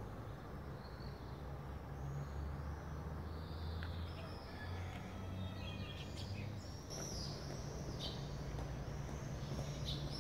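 Small songbirds chirping and singing in repeated short calls, busier in the second half, over a steady low hum of background noise.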